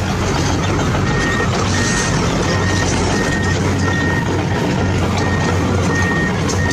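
Reversing alarm beeping on a toy RC construction vehicle, short even beeps at one high pitch a little under two a second starting about a second in, over the steady whirring of its electric motors.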